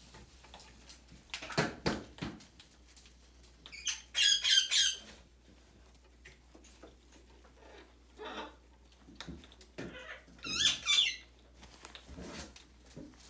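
Young red-fronted macaw squeaking: two short runs of rapid, high, quickly repeated notes, one about four seconds in and one near eleven seconds. A few lower, shorter calls come in between.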